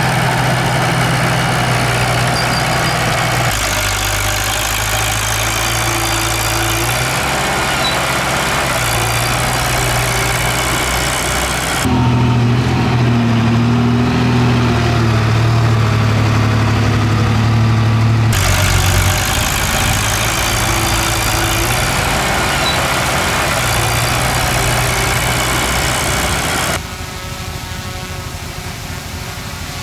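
Heavy diesel engines of earthmoving machines running steadily, their note changing abruptly several times. It is quieter and different near the end.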